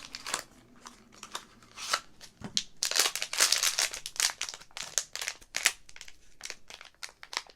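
Mystery pin blind-box packaging being opened by hand: a run of crinkles, crackles and rustles, busiest about three seconds in.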